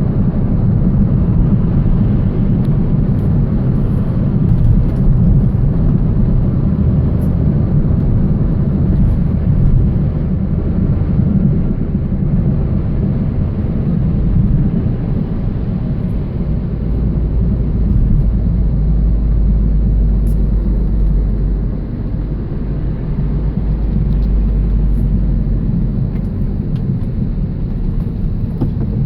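Steady low rumble and drone from a 2000 Toyota Celica GT-S on the move, with a deeper hum coming up about halfway through: the noise the owner suspects is a bad wheel bearing.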